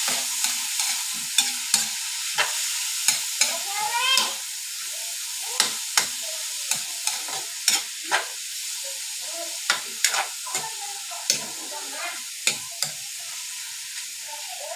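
Diced meat frying in a hot aluminium wok, a steady sizzle broken by irregular sharp clicks and scrapes of a metal utensil stirring against the pan.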